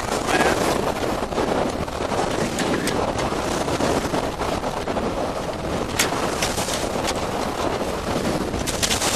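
Wind buffeting the microphone over water rushing and splashing along a Maxi 95 sailboat's hull while under sail in choppy water. A sharp knock about six seconds in.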